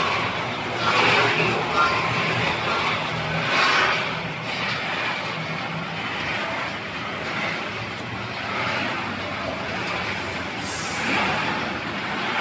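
Snack production machinery running steadily: a rotating stainless-steel flavoring drum turns with puffed corn snacks tumbling inside, over a low motor hum.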